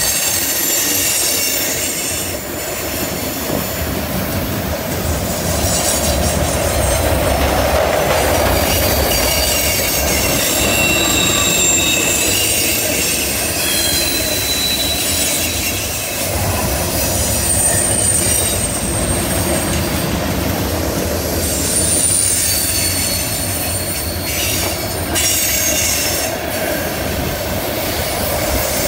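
Freight train cars rolling past on a curve: the steel wheels squeal against the rail in several high, shifting tones that come and go, over a steady rumble of the wheels on the track.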